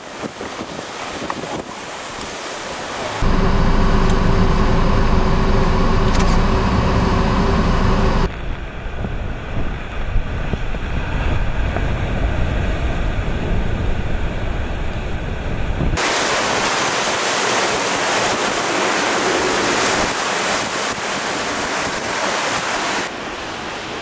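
Heavy storm surf crashing against a seawall and rocky shore, with wind buffeting the microphone. The sound changes abruptly several times as the shots change: a few seconds in it turns to a deep rumble, and later to a brighter, full hiss of breaking waves.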